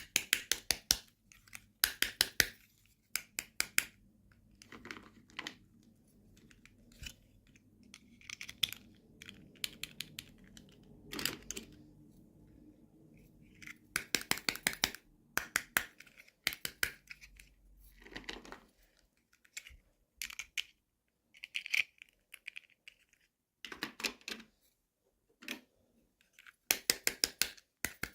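Toy packaging being handled and opened: clusters of rapid clicks and crinkling crackles with short pauses between them.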